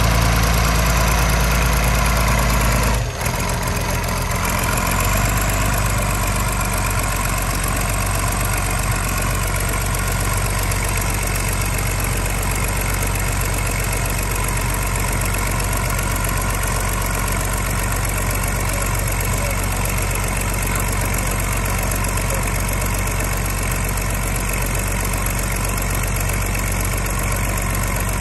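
Oliver 1850 tractor's diesel engine running hard under load while it pulls a dead-weight sled, its rear tyres spinning into the dirt. The engine note drops abruptly about three seconds in, then holds steady.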